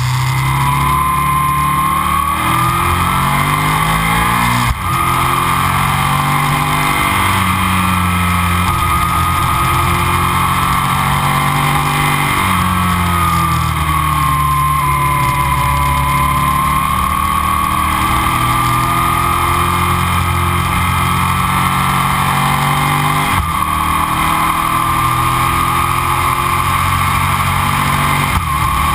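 Aprilia RSV 1000's 60° V-twin engine, fitted with Arrow silencers, running under way on a motorcycle ride. Its note rises and falls with the throttle, with a brief break about five seconds in and another after about 23 seconds.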